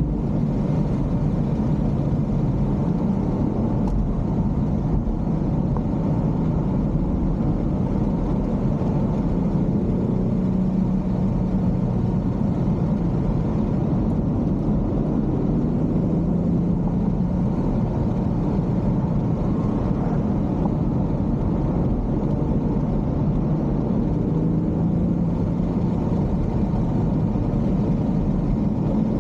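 A BMW X4 M40i's turbocharged straight-six running under steady driving, with tyre and road noise; the engine note drifts gently up and down with the throttle.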